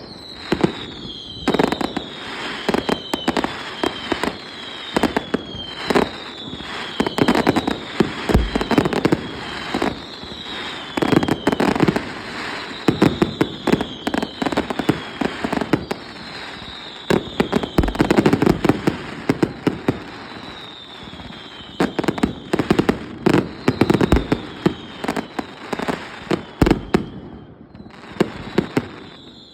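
Fireworks display: a dense run of sharp bangs and booming bursts, with repeated short whistles falling in pitch between them.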